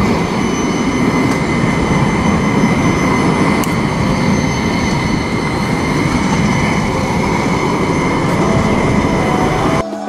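A CAF tram running past on its rails, a loud steady rumble with a steady high whine over it. It cuts off suddenly near the end.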